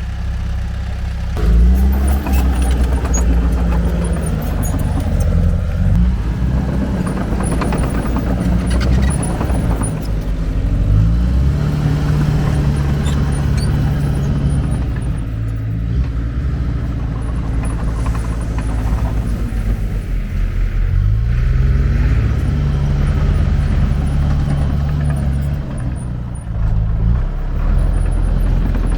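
Diesel engine of a heavy earthmoving machine working, its pitch rising and falling as it is throttled up and down under load, with a few clanks.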